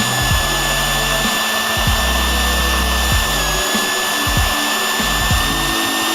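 Hair dryer running steadily: a loud rush of air with a high, steady motor whine.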